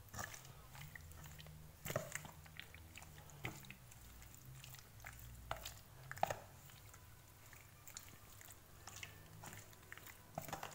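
A metal spoon stirring egg-coated marinated chicken strips in a plastic tub: faint wet squelching with scattered sharp clicks of the spoon against the tub.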